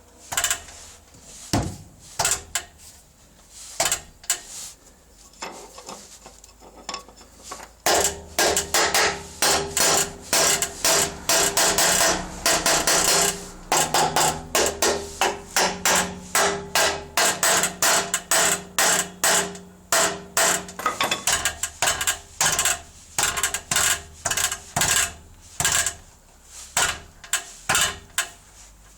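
BMW E46 exhaust rattling: a run of sharp, irregular metallic knocks and clanks. They thicken into a near-continuous clatter over a running engine about eight seconds in, then thin out again around twenty seconds in.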